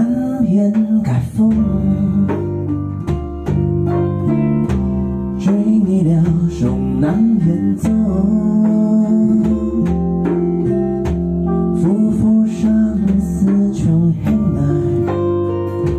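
A small live band playing a song: strummed acoustic guitar with bass and electric guitar, and a man singing over them.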